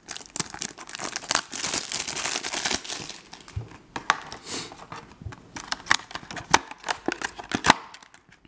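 Clear plastic packaging bag crinkling and tearing as a boxed replacement battery is pulled out of it, followed by a run of sharper crackles and taps as the box is handled.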